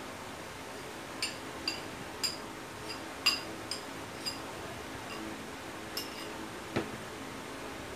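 Metal spoon clinking against a ceramic bowl while ramen is scraped out of it: a string of short, ringing clinks about every half second, then a duller knock about seven seconds in.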